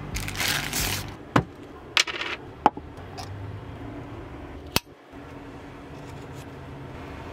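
Sandwich-making sounds: a plastic bread bag rustling, then several sharp clicks and taps of food and a knife on a wooden cutting board. A faint low hum runs under the second half.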